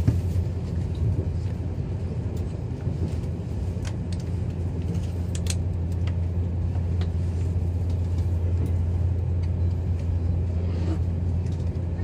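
Steady low rumble of a JR Central 383 series limited express train running, heard from inside a passenger car, with a few short clicks around the middle.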